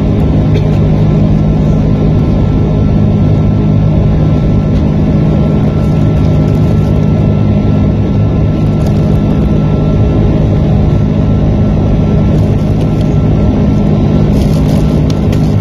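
Steady jet airliner cabin noise heard at a window seat in flight: a constant low engine drone with the rush of airflow over the fuselage.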